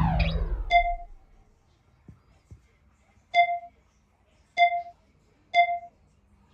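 Dubbed-in electronic beep sound effects: five short, identical beeps at uneven intervals. They come after the tail of a loud falling swoosh at the start, with a couple of faint soft taps between them.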